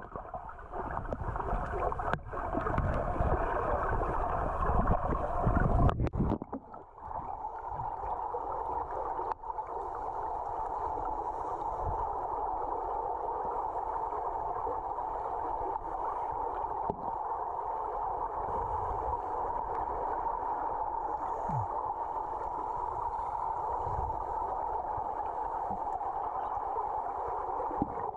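Underwater sound heard through a camera's waterproof housing: a loud, rough rumble of moving water for about the first six seconds, then a steady, even water hiss.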